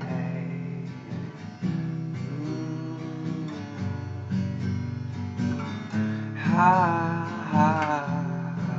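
Acoustic guitar strumming chords in an instrumental gap of a song, with a wordless wavering vocal line over it about three-quarters of the way through.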